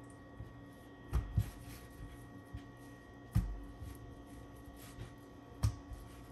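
A handful of short, soft knocks from kitchen work, two close together about a second in, another past the halfway point and one near the end, over a steady electrical hum.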